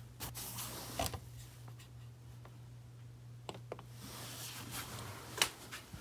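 Close handling noise: fabric rustling against the microphone and a few sharp clicks, the loudest near the end, over a steady low hum.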